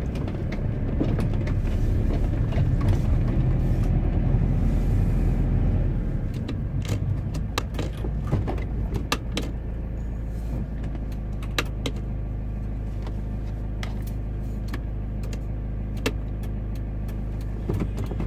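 Motorhome engine running, heard from inside the cab: a steady low hum, louder for about the first six seconds, then settling lower. Scattered light clicks and ticks sound over it.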